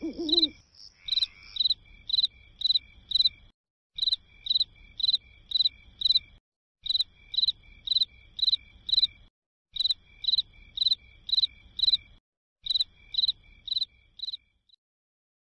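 Cricket chirping: short high chirps, about two a second, in runs of four or five separated by brief pauses. The chirping stops shortly before the end.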